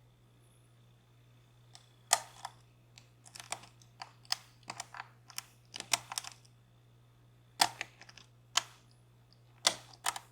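Sharp, irregular metallic clicks of a thin lock pick working the pin stacks inside a DOM Plura lock cylinder, starting about two seconds in, some single and some in quick clusters.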